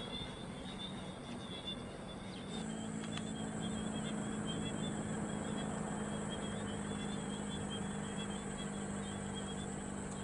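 Faint distant aircraft noise with a high, steady chirping of insects and birds. About two and a half seconds in, the sound changes abruptly to the steady low hum of a Boeing 737-500's CFM56 turbofans on approach, a thin high whine over it, with the chirping still going on.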